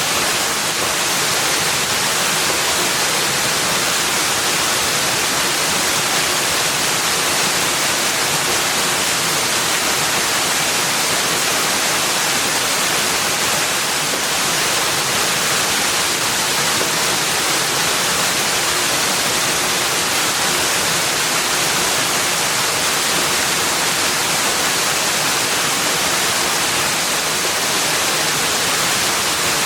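Steady rushing of running water, like a stream or small waterfall, an even hiss with no change or distinct events.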